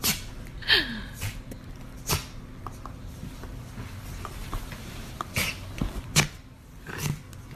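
Pomeranian puppy making funny noises: about six short, sharp sounds, in two clusters with a quiet gap of a few seconds between them. The sounds include a brief falling whine just under a second in.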